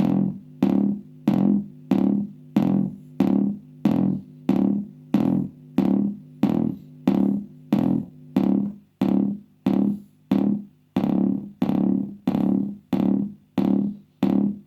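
Homemade twin-T oscillator kick drum circuit playing through a speaker: a steady beat of short pitched thumps, a little under two a second, each one dying away quickly.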